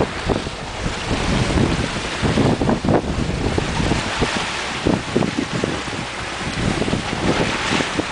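Wind buffeting the microphone in gusts over the steady rush and hiss of rough open-ocean water surging past a sailing yacht under way.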